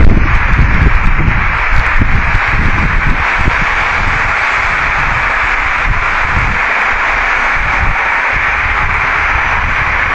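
Steady loud hiss from a heavily amplified room recording, with low, gusty rumbling in the first few seconds that dies down after about three seconds.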